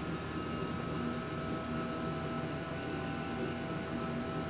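Electric potter's wheel running at a steady speed, giving a constant hum with a few steady tones under an even hiss while wet clay is being drawn up on it.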